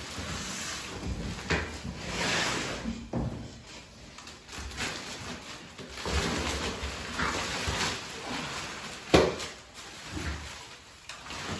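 Bike packaging being handled during unboxing: cardboard and plastic wrapping rustling in a series of swishes, with knocks, one sharp knock about nine seconds in.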